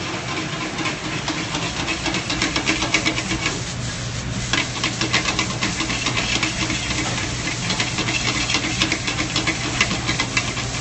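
Sliced onions sizzling and crackling in butter in a hot sauté pan as they caramelize, a dense rapid crackle over a steady low hum.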